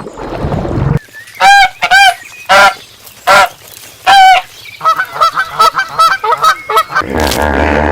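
Geese honking: about six loud, separate honks, followed by a run of quicker, softer cackling calls. A deeper animal call begins near the end.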